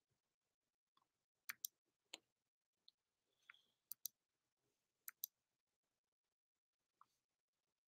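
Faint, sharp clicks in quick pairs, three pairs in a row, against near silence.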